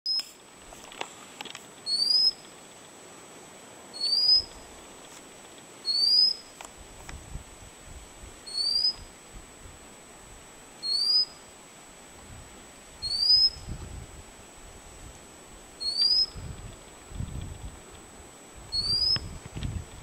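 White-capped redstart calling: a thin, rising whistle repeated about nine times, every two to three seconds.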